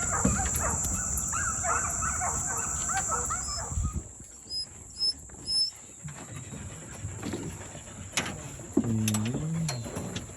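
Running hounds baying in the distance, their wavering bawls strongest in the first few seconds, with a few short bird chirps and a lower drawn-out call near the end.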